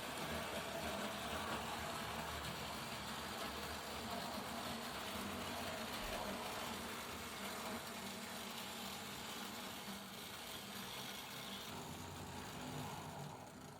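Hornby Dublo model locomotive running along the track: a steady whirring motor and wheel rumble that eases off and dies away near the end as the train slows to a stop.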